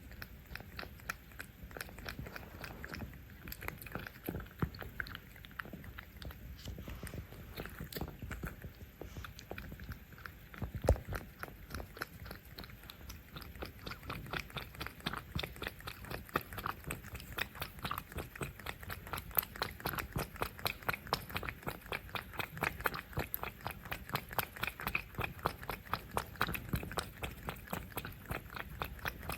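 Cats chewing and eating food close to the microphone: rapid, regular wet chewing clicks at about four a second, steadier and louder in the second half.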